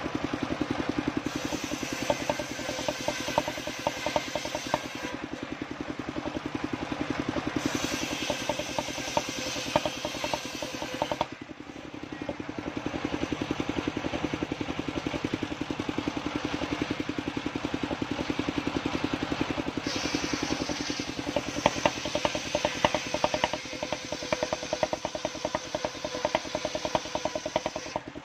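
Engine-driven sawmill circular saw running with a steady engine hum. Its blade rips waru (sea hibiscus) wood in three stretches, in the first few seconds, again around the middle of the first half, and longest over the last eight seconds. Each cut adds a harsher, higher cutting noise over the engine.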